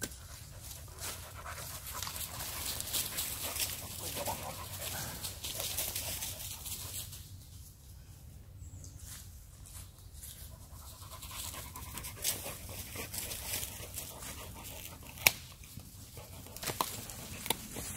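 Spaniel panting rapidly, with one sharp click about fifteen seconds in.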